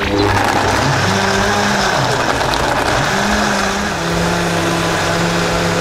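Commercial high-speed smoothie blender running, crushing ice and frozen blackberries. The motor starts abruptly, its pitch rises and falls a few times in the first seconds as the load shifts, then it settles into a steady run.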